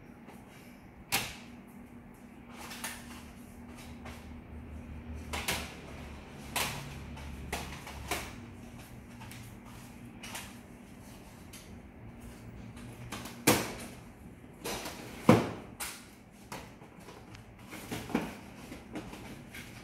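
Irregular clacks and knocks of cassette tapes in plastic cases being handled and set down in plastic boxes, the two loudest a couple of seconds apart past the middle.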